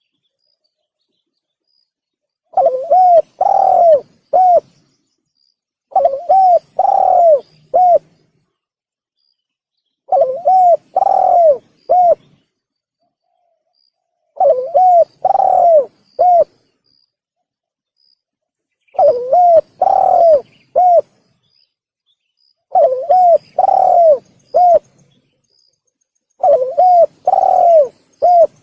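Spotted dove (tekukur) cooing: seven repeated phrases of about four hooked coos each, one phrase roughly every four seconds with quiet gaps between.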